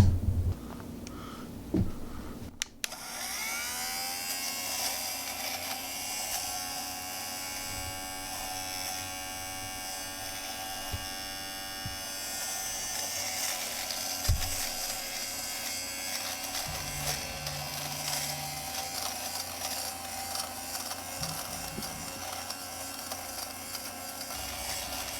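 Battery-powered fabric lint remover (sweater shaver) switched on about three seconds in. Its motor spins up with a rising whine, then runs steadily as its blades shave lint and fuzz off fabric.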